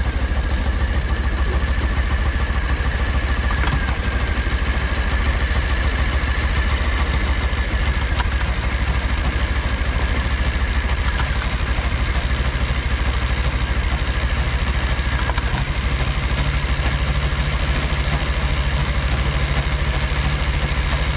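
Suzuki GW250's parallel-twin engine idling steadily, carrying an abnormal chain noise: light clatter over the engine note. The owner takes it for a chain fault.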